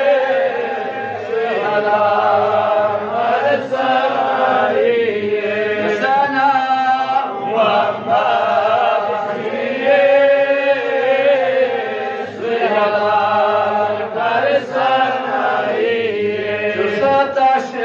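A man's voice chanting a religious recitation into a microphone: long, melodic held notes that glide in pitch, with a few short breaks between phrases.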